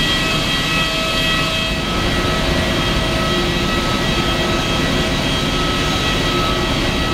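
Loud, steady jet-turbine whine over a rushing noise, with several high steady tones, from an airliner on the apron.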